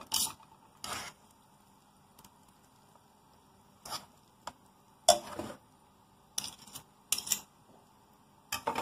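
Metal forks scraping and clinking against a frying pan while fettuccine is tossed: about seven short scrapes and clinks, spread out with quiet between them.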